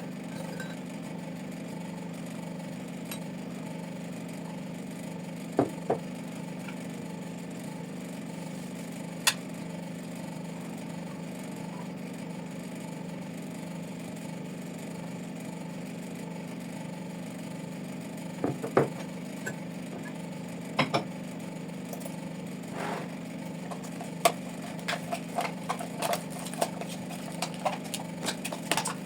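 Scattered small clicks and clinks of objects being handled, over a steady low hum; a few single knocks early on give way to a quicker run of light clicks and clinks in the last few seconds.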